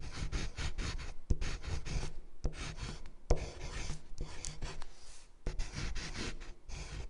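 Pen scratching across paper as a signature is written: a run of quick scraping strokes with short pauses between them, and a couple of sharp ticks about one and three seconds in.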